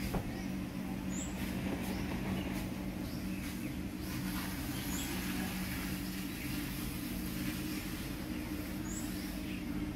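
A steady low mechanical hum, like a motor or engine running, with a short high bird chirp about every four seconds and fainter chirps in the background.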